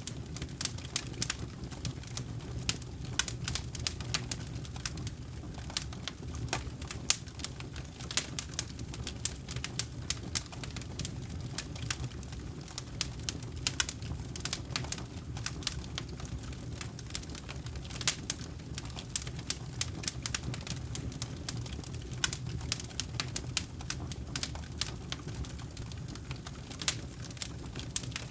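Wood campfire crackling: frequent sharp pops and snaps from the burning logs over a steady low rumble of the flames.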